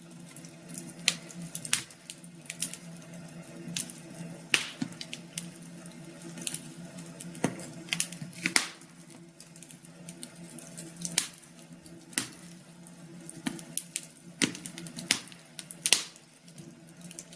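Wood fire in a fireplace crackling, with irregular sharp pops and snaps over a faint steady hum.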